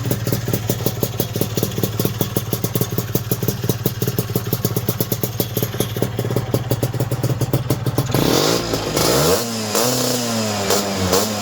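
Lambretta GP scooter's two-stroke single-cylinder engine with an Imola 198 kit, idling with an even, pulsing beat. About eight seconds in the throttle is opened: the revs climb, then rise and fall with repeated blips.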